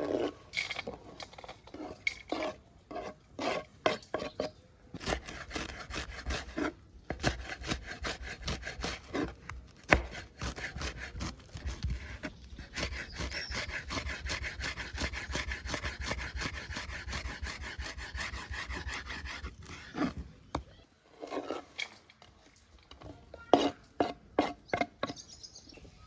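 Hand food preparation with a utensil: a few separate scraping strokes, then a long run of fast, even rubbing strokes, then a short pause and a few more strokes near the end.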